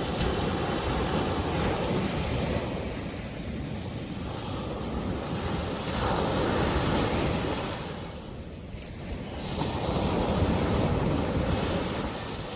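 Sea waves breaking and washing onto a sandy beach. The surf swells and ebbs in surges a few seconds apart, with a lull about two-thirds of the way through.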